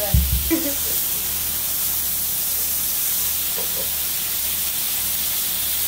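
Beef fajita strips sizzling on a hot electric griddle, a steady frying hiss. There is one dull thump just after the start.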